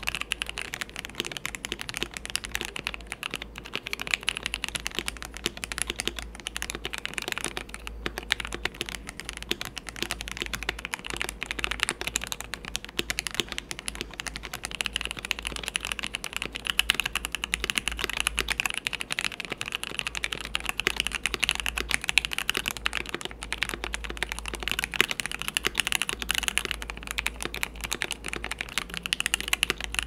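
Continuous fast typing on a mechanical keyboard with Gateron linear switches, a dense clatter of key strokes. The switches alternate between lubed Gateron Milky Yellow Pros, which are soft and somewhat muted, and the comparison switches (lubed Gateron Pro Reds, then stock Gateron Oil Kings), which are louder and sharper.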